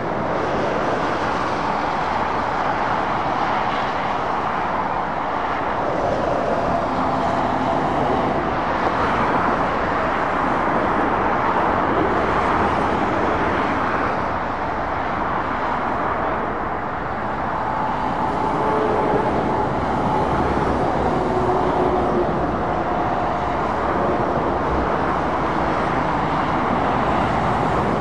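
Steady roar of heavy lorries and cars passing at speed on a dual carriageway, mostly tyre and engine noise, with brief engine hums standing out now and then.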